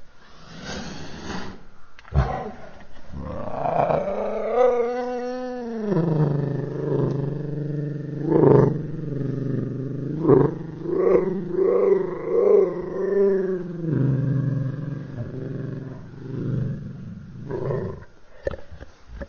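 Custom monster roar for a Godzilla-like creature, layered from animal and creature sound effects. One long roar begins about two seconds in with its pitch sweeping up and back down, then settles into a lower pulsing roar with sharp accents. It breaks off and gives way to shorter, weaker growls near the end.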